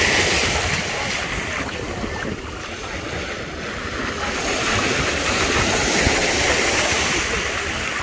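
Small Mediterranean waves breaking and washing up a sandy shore over bare feet, a steady rush of surf. It surges near the start, eases off, then surges again about six seconds in.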